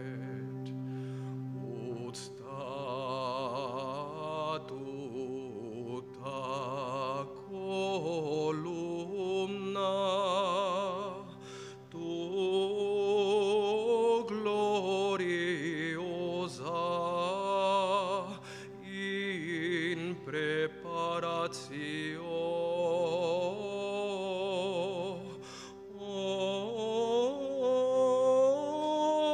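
Solo male voice singing slow, sustained phrases with strong vibrato, over steady held accompanying notes.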